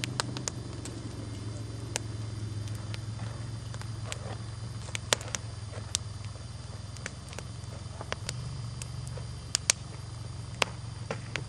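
ATV (four-wheeler) engine running as a steady low hum, with scattered sharp clicks over it.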